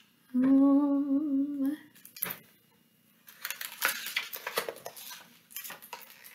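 A woman hums a wavering "mmm" at an even pitch for about a second and a half. Then the pages of a picture book are handled and turned, with a couple of seconds of crisp paper rustling.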